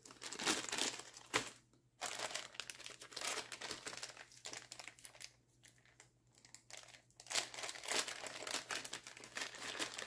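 Thin clear plastic zip-top bags crinkling and rustling as they are handled and opened, in irregular bursts with short pauses.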